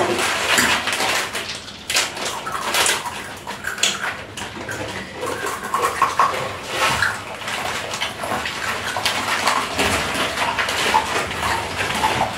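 Plastic snack packets crinkling and rustling as several people open and handle them, with crunchy snacks being chewed. The crackling is dense and irregular.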